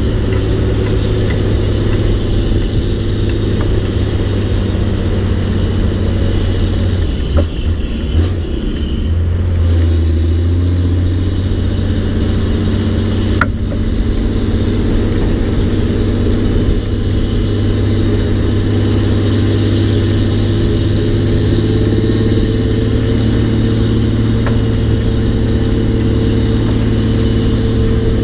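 Peterbilt 359's 425 hp Caterpillar 3406 inline-six diesel running steadily under load while hauling a heavy trailer. Its engine note drops briefly about a third of the way in, then comes back, and there is one sharp click around halfway.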